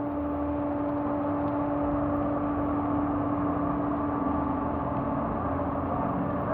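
Off-road jeep engines running at low speed as the jeeps roll slowly across wet pavement, with a steady hum throughout.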